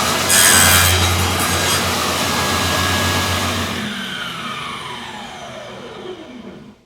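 An electric power saw cutting plywood, then switched off about four seconds in, its motor winding down with a whine that falls steadily in pitch and fades.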